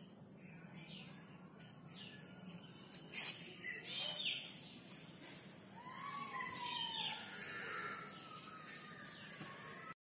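Birds calling in the trees: short chirps that slide downward, repeated every second or so, and longer, lower gliding calls in the second half, over a steady high hiss. One sharp click about three seconds in.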